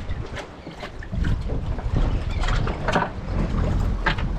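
Wind buffeting the microphone on a small boat, an uneven low rumble, with a few short knocks scattered through it.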